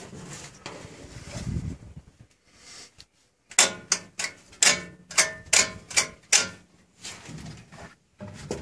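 A run of about seven sharp clanks, roughly two a second, each with a short ringing tail, from the crane's steel parts being knocked and handled. Quieter rumbling handling noise comes before them.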